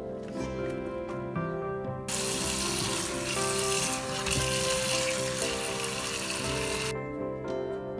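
Tap water running onto salted napa cabbage leaves in a metal colander, starting about two seconds in and stopping about a second before the end, over light background music.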